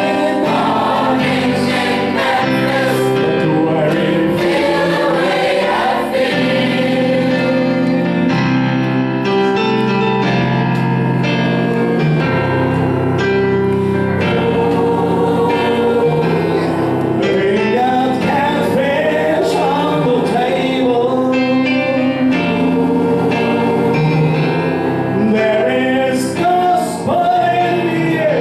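A choir singing gospel music with instrumental accompaniment.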